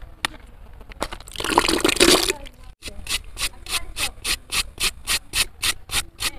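A loud hissing rush lasts about a second, then rhythmic scraping starts at about four strokes a second.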